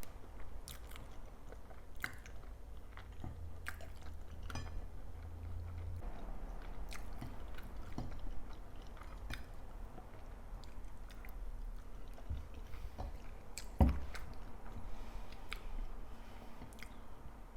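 A person chewing and biting food close to the microphone, with scattered wet mouth clicks and smacks. One louder knock comes about three-quarters of the way through.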